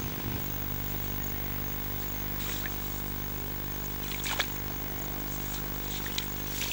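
An engine running steadily at an even speed, with a couple of brief rustles or clicks a few seconds in.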